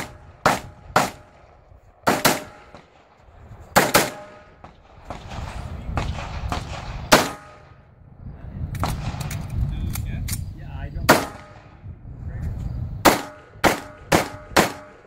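Semi-automatic pistol fired in an action-shooting course of fire: about a dozen sharp shots in quick pairs and strings with pauses between, ending in a fast string of five near the end.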